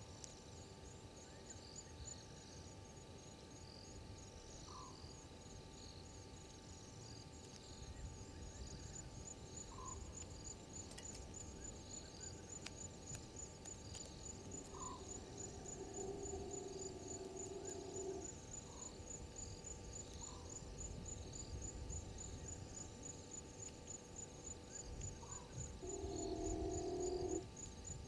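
Night insects, crickets, trilling steadily in a fast even pulse, with a short rising note about every five seconds. A steady low hum comes in for a few seconds around the middle and again, louder and shorter, near the end.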